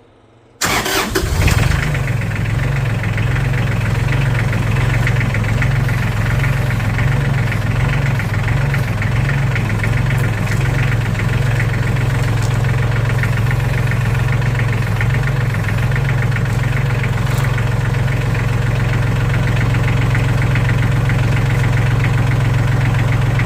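Massey Ferguson tractor engine starting about half a second in, catching at once, then idling steadily.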